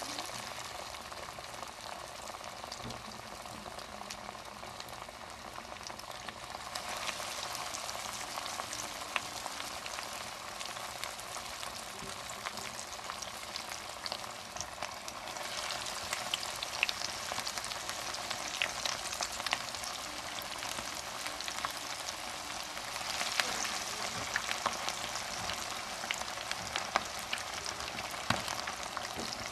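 Batter-coated chicken wings deep-frying in hot oil in a pan: a steady sizzle full of small crackling pops. It grows louder in steps as more pieces go into the oil.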